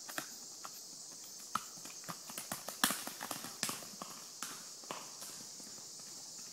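Horses' hooves clopping on a dirt trail: irregular hoof strikes, most frequent about two to four seconds in, thinning out after about five seconds. A steady high insect drone runs underneath.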